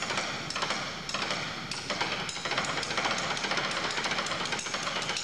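Drumsticks struck in a fast, continuous run on the wooden stage floor and against each other, as a solo percussion performance.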